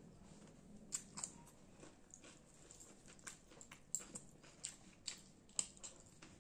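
Close-up eating sounds of a person eating rice and fish by hand: chewing and lip-smacking, heard as a string of short, irregular wet mouth clicks, a few a second.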